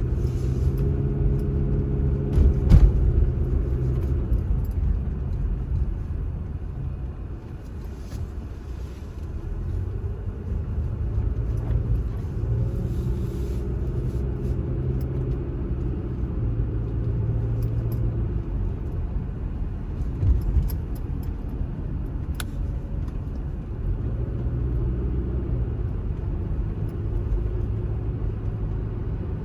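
Car engine and road rumble heard from inside the cabin while driving, the engine hum rising and falling with the throttle. A single sharp thump about three seconds in.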